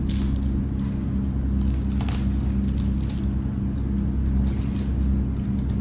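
A steady low machine hum, with scattered brief rustles and crinkles of paper and foil as flatbread is pulled from a basket.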